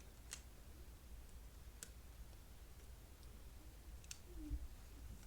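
Three light, sharp clicks of small plastic toy pieces being handled and fitted together, spread a second or two apart, with a soft low bump near the end.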